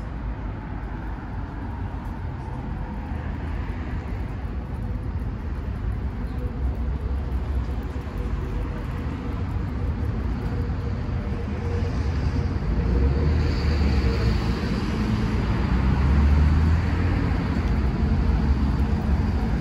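Road traffic on a city street: a steady mix of engine and tyre noise that grows louder from about two thirds of the way through as vehicles pass close by.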